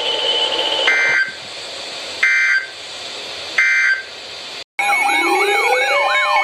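Three short two-tone digital data bursts, about 1.3 seconds apart: the EAS SAME end-of-message code from a NOAA Weather Radio broadcast, marking the end of the warning. After an abrupt cut near the end, loud electronic alert tones begin, sweeping up and down like a siren over steady beeping tones.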